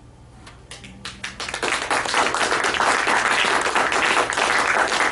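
Audience applauding at the end of a poem: a few scattered claps about a second in, building quickly into steady applause.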